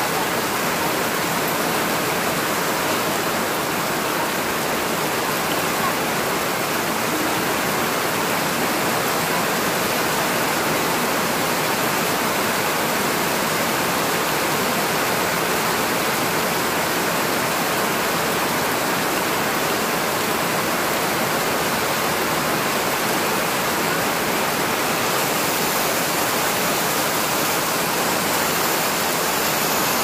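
Heavy rain pouring steadily onto leafy ground plants and soil: a dense, even hiss of countless drops.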